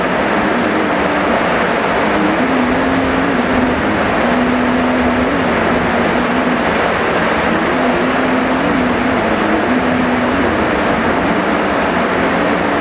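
Steady heavy rain: a dense, even hiss that never lets up, with a faint low hum under it that wavers in pitch.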